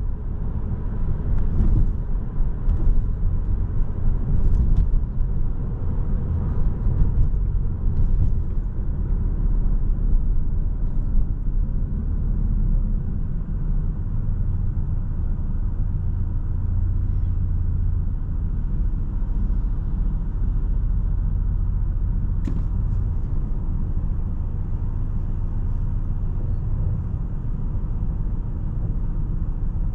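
Porsche 718 Boxster S's turbocharged flat-four and road noise heard while driving: a low rumble that is uneven in the first several seconds, then settles into a steady drone.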